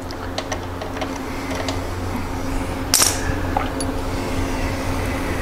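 Small clicks and light handling noises as an engine-oil dipstick is drawn out and checked, with a brief rustling scrape about three seconds in, over a steady low machine hum.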